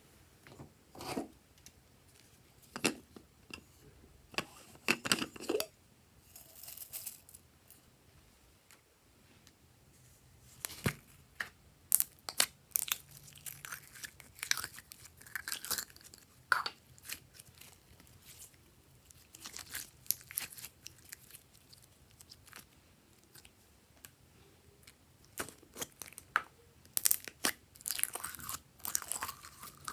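Glossy slime being squished, folded and stretched by hand, giving irregular clusters of sticky pops, clicks and crackles with short quiet gaps between them.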